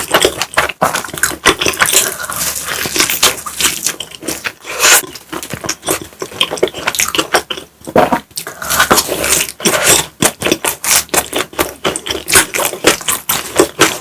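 Close-miked mukbang eating sounds: someone chewing pizza and mac and cheese, with wet smacking clicks coming many times a second and a brief lull a little before halfway.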